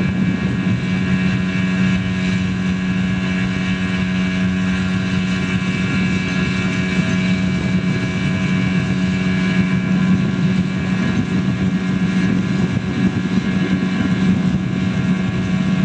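Outboard motor running steadily at speed, a constant drone, with wind on the microphone.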